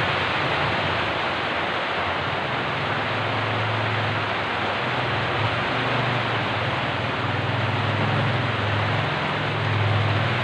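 Heavy typhoon rain, a loud, steady rushing hiss, with a low wavering rumble underneath.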